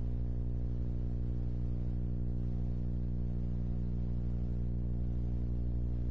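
A steady low hum with many even overtones, unchanging throughout.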